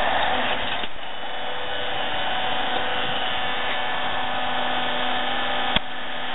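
Vertical hydraulic log splitter's motor and pump running with a steady hum, with one sharp click near the end.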